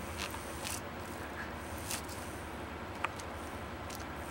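A few short, light clicks and taps as kittens paw at a dangling plastic toy, over a steady low hum.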